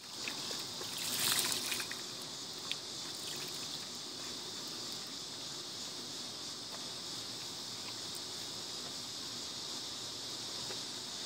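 Water sloshing and splashing as a dog paddles through a pool, with a louder stretch of splashing about a second in and a few small knocks after it, over a steady high hiss.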